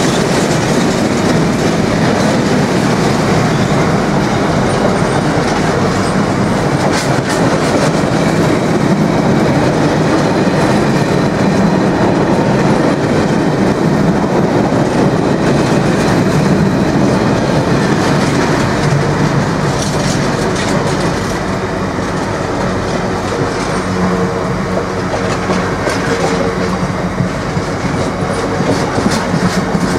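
Bogie oil tank wagons of a freight train rolling past at speed, their wheels clattering over the rail joints in a steady clickety-clack with many metallic clicks. It eases slightly in loudness about two-thirds of the way through.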